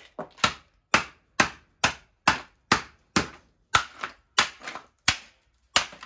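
Rapid repeated blows, about thirteen in all at roughly two a second, smashing an SMF-3RDEA1 microwave fan motor and its plastic housing on a concrete floor. Each blow is a sharp impact that dies away quickly.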